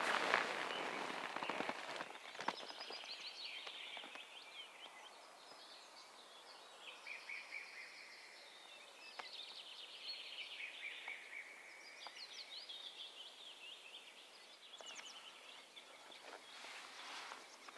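Wild birds singing, with many short high chirping and trilling phrases one after another. It opens with a loud crackling rustle, and more rustling comes near the end.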